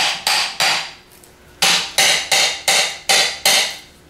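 Hammer tapping on the aluminum front housing of a GM CS144 alternator, knocking it loose from the rear half now that the case bolts are out. Three quick taps, a pause of about a second, then seven more at about three a second, each with a brief metallic ring.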